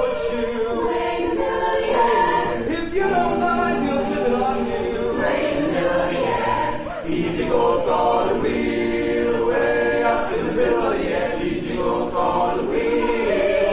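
Mixed choir of male and female voices singing together in harmony, sustained sung phrases with short breaths between them.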